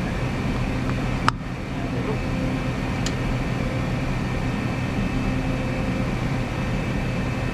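Web printing press running with a steady mechanical hum. A sharp click about a second in and a fainter one about three seconds in.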